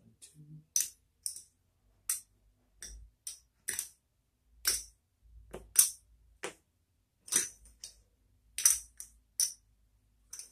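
Poker chips clicking against each other as they are stacked and set down on the box numbers of a craps layout, placing the bets. About fifteen sharp clacks come unevenly, roughly one every half second to a second.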